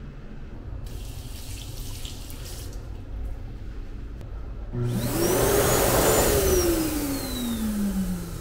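Jet-type slot hand dryer blowing: a strong rush of air with a motor whine that spins up quickly, then winds down slowly as the blast stops. A shorter, fainter hiss comes earlier, about a second in.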